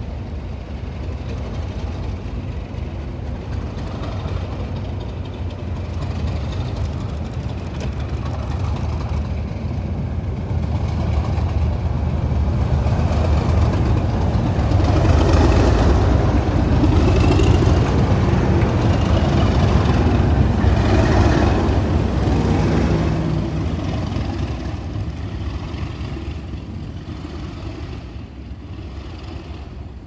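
A pair of Class 37 diesel locomotives with English Electric V12 engines, working under power as they move past the platform. The engine sound builds, is loudest a little past halfway as the locomotives pass close by, then fades as they move off.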